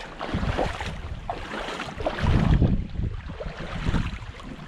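Creek water sloshing and splashing irregularly around boots as someone wades through a shallow creek.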